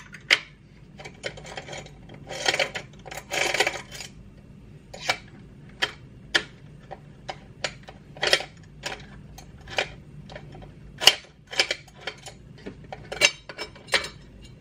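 Hex screwdriver undoing the small screws of a scale RC crawler's battery-compartment cover: irregular light clicks and taps of metal on screws and plastic, with short scrapes about two and a half and three and a half seconds in.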